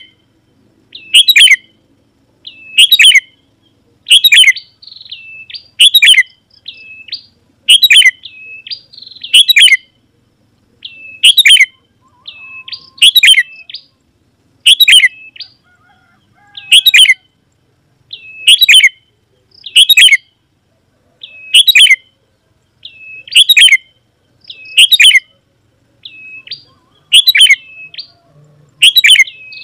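Sooty-headed bulbul (kutilang) calling loudly, repeating a short, bright phrase about every second and a half to two seconds, with softer hooked notes in between.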